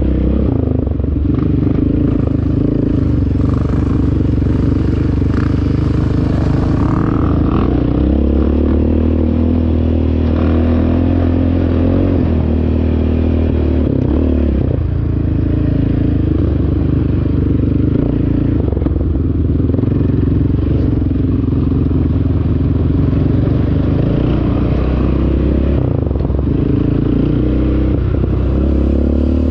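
ATV engine running steadily under way on a trail, easing off briefly about halfway through before picking up again.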